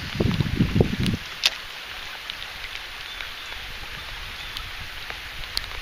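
Steady rain falling, with scattered single drops ticking close by. Through the first second, low buffeting noise on the microphone.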